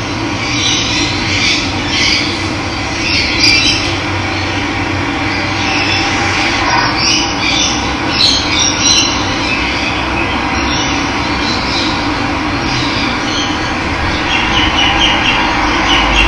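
Running water rushing steadily, with wild birds calling and squawking over it.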